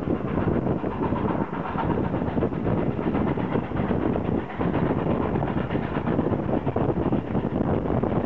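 Steam-hauled passenger train running at speed, heard from an open carriage window. A steady rush of wheel and track noise mixes with moving air.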